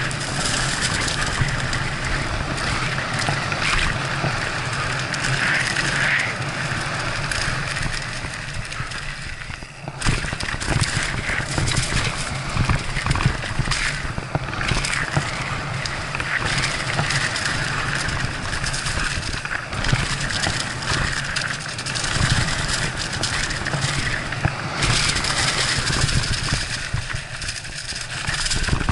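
Mountain bike riding fast down a rough dirt trail: continuous tyre noise on dirt with frequent rattles and knocks from the bike over bumps. The bike goes briefly quieter just under ten seconds in, then a sharp knock.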